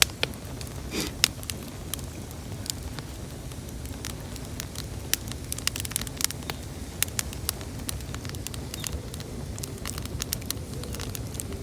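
Bonfire burning, with irregular sharp crackles and pops over a steady low rushing of the flames.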